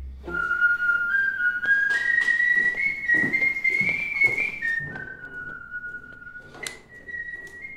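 A person whistling one long drawn-out note that creeps upward in pitch for about four seconds, drops suddenly, then rises again near the end: the coaxing whistle used to help someone urinate.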